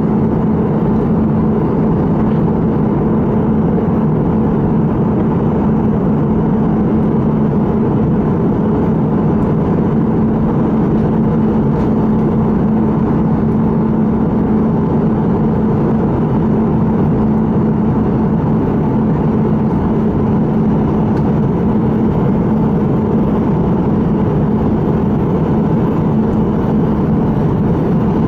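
Airbus A320 cabin noise in flight: the even drone of the jet engines and airflow past the fuselage, with a steady low hum running through it.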